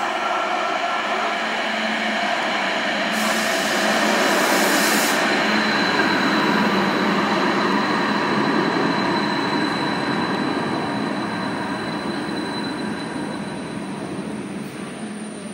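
Stadler Variobahn light-rail tram running along the track in an underground station: a steady rumble of wheels and motors that grows loudest a few seconds in and fades near the end, with a thin high whine through the middle. A brief hiss about three seconds in.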